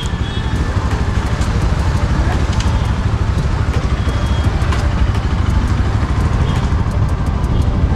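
Motorcycle engine running at low revs, a steady low chugging, as the bike creeps along in slow street traffic.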